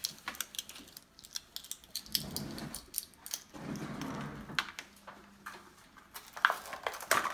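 Small plastic toy pieces and packaging being handled: scattered light clicks and rattles, with two short stretches of duller rustling in the middle and a few sharper clicks near the end.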